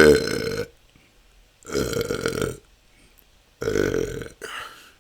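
A person belching: natural, unforced burps in a row, each under a second long. There is one at the start, another about a second and a half later, and two close together near the end.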